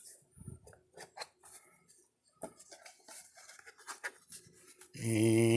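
Scattered light clicks, taps and rustles of a knife and its packaging being handled and moved about. A man's voice starts near the end.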